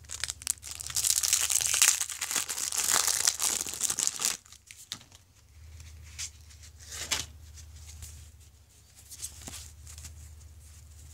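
1989 Topps baseball card pack wrapper being torn open and crinkled for about four seconds, followed by fainter scattered rustling as the cards come out, over a low steady hum.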